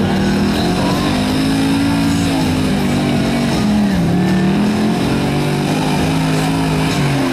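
Chevy K20 pickup's gas engine revving hard under load as it pulls the weight-transfer sled, its pitch rising and falling and dipping about four seconds in.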